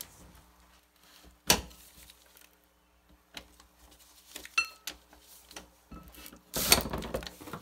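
Hand tools clinking and clicking on the steel bolts of a Jaguar lower ball joint as a wrench is fitted on, with one ringing metallic clink about halfway. Near the end comes the loudest part, a short run of rapid ratchet clicks as the tight bolts are worked.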